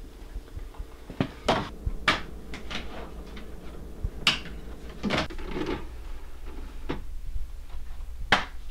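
About half a dozen sharp plastic clicks and knocks at uneven intervals as a DVD case is opened and handled and a disc is loaded into a DVD player.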